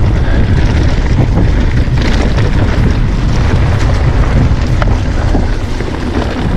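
Wind buffeting the microphone of an action camera on a mountain bike riding a dirt forest trail, over the low rumble of the tyres and the bike's rattles and clicks as it runs over bumps.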